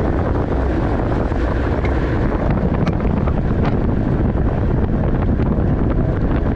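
Heavy, steady wind rush on the microphone of a camera riding along in a bicycle criterium race. A few scattered sharp clicks sound over it.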